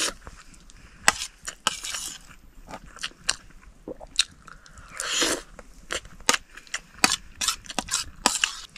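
Close-up eating sounds: irregular chewing and crunching, with sharp clicks throughout and a longer rustling scrape about five seconds in.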